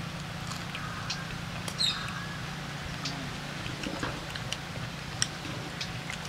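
Outdoor ambience of small birds chirping in short, scattered calls over a steady low hum, with a few sharp clicks.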